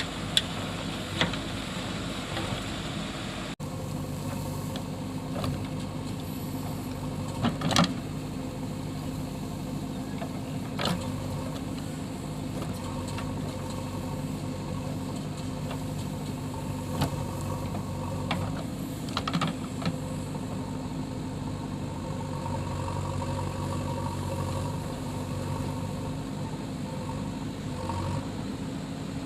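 Diesel engine of a JCB 3DX backhoe loader running steadily while loading mud, with a few sharp metal clanks scattered through.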